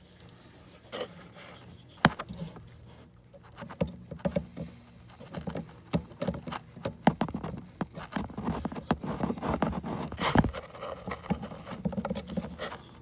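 Soldering iron and alloy wire working on a surface-mount chip's leads while desoldering it with low-melting SMD removal alloy: irregular small clicks, taps and scrapes. These are sparse at first and dense in the second half, with a louder knock about ten seconds in.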